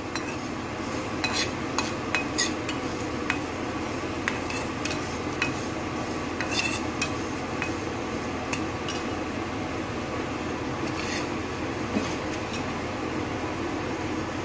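Steel spatula scraping and clicking against a steel kadai as whole spices and dried red chillies are stirred while dry-roasting, with irregular sharp taps over a steady hiss.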